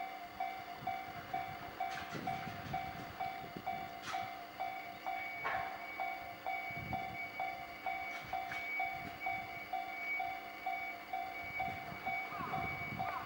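Japanese level-crossing warning bell ringing in an even, repeating electronic ding while a train rolls past with a low rumble and scattered knocks of wheels over rail joints.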